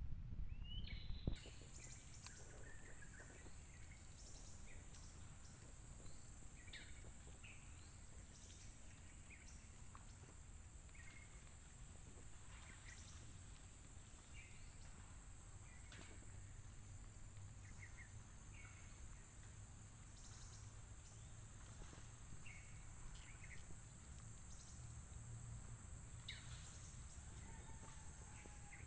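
Faint, steady high-pitched insect drone in tropical forest, with short bird chirps scattered irregularly through it. A few bumps in the first second or so.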